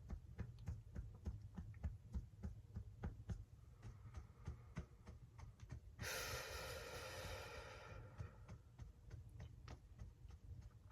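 Fingertips tapping lightly and steadily on the body's EFT points, about three to four taps a second. About six seconds in comes a long, deep breath lasting about two seconds, with a fainter breath shortly before it.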